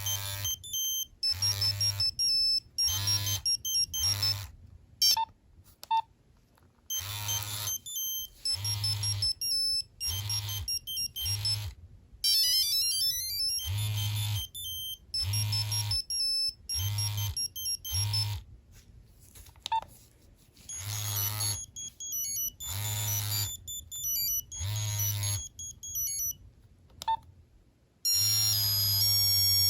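Nokia 3390 monophonic ringtones playing through the phone's small speaker: short, bright beeping notes in bursts with pauses between them. About twelve seconds in there is a quick rising run of notes, and a busier tune starts near the end.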